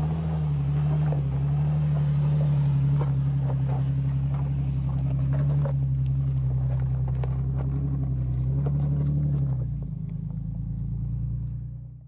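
Toyota FJ Cruiser's 4.0-litre V6 running at low revs as it crawls over rocks, the engine note wavering slightly with the throttle, with stones clicking and crunching under the tyres. The engine sound fades near the end.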